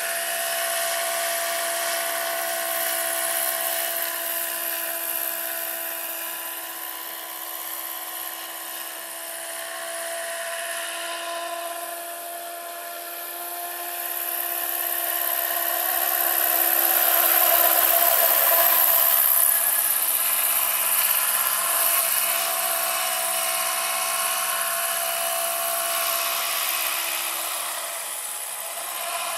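Electric-powered NH-90 scale model helicopter with a 1.85 m rotor in flight: a steady electric motor whine made of several held tones over the rotor noise. It grows louder as the model comes closer, loudest a little past the middle, then eases off near the end.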